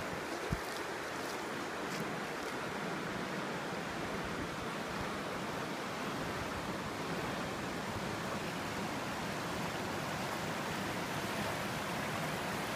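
Steady rushing of flowing river water, with a light knock about half a second in.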